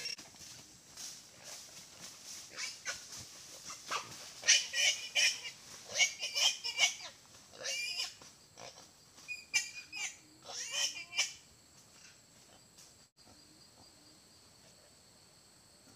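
Wild boar squealing, a run of shrill cries in bursts that stop about eleven seconds in: a boar wounded by an air-rifle shot.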